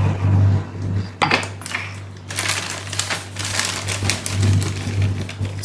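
Irregular light clicks and rustling, like small objects being handled, over a low hum that swells and fades.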